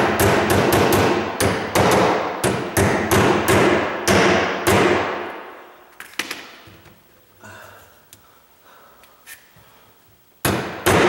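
Hammer striking a concealed cabinet hinge's metal mounting plate on a particleboard cabinet side, quick blows about two to three a second, each ringing briefly. The hammering stops for about five seconds, with only a few faint knocks, and starts again near the end.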